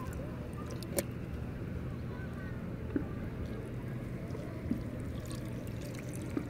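Steady low rumble of wind and shallow seawater, with four faint clicks a second or two apart: small knocks and drips as a hand works at a plastic bucket of water holding sea worms.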